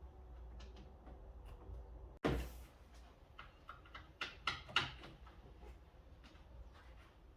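Work noises from fitting a plastic front lip splitter to a car bumper: a short scuff about two seconds in, then a handful of sharp clicks and knocks.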